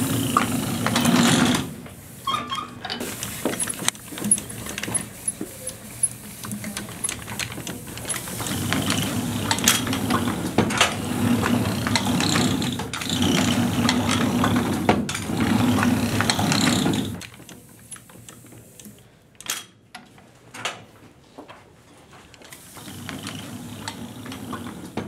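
Hand-operated letterpress printing press running: a rolling mechanical rumble with clicks and clatter from the moving carriage and rollers, dropping off at about seventeen seconds to scattered clicks and knocks.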